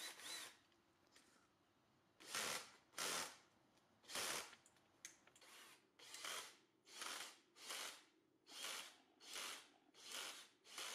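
Bosch GSR 12 V Professional cordless drill running unloaded in about a dozen short trigger pulls of about half a second each, now powered by a converted lithium-ion pack at about 16 V.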